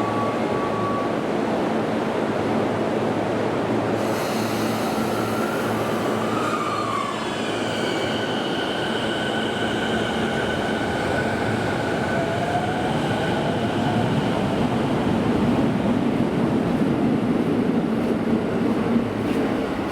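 Toei Shinjuku Line train running through the station: a steady rumble of wheels and motors, with high steady tones from about four seconds in that hold for several seconds. The sound grows louder toward the end, with a sharp click near the end.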